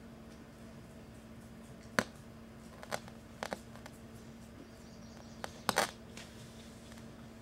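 A few scattered sharp clicks and taps of a dog's claws on a hardwood floor, the loudest about two seconds in and a short cluster about three-quarters of the way through, over a faint steady low hum.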